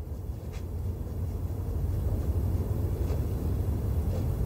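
A low, steady rumble that grows louder over the first couple of seconds and then holds, with a few faint ticks over it.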